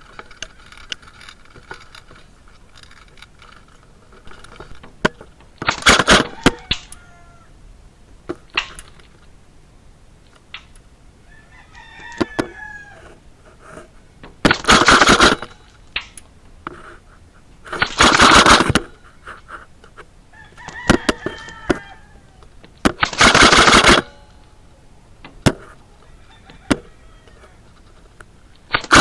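A rooster crowing again and again, with loud bursts about a second long. Scattered sharp cracks are heard between the crows.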